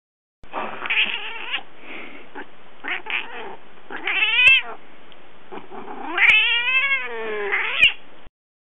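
Angry domestic cat yowling: a string of drawn-out, wavering meows and wails. The longest ones, about four and six seconds in, bend up and down in pitch before the sound breaks off abruptly near the end.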